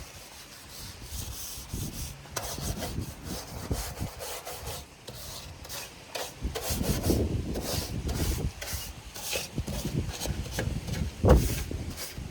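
Irregular rubbing and scraping against a surface by hand, in uneven strokes, with a sharp knock about eleven seconds in.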